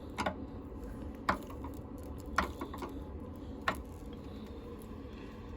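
A few light clicks and knocks, about one a second, from a portable toilet safety frame's parts being handled and tightened.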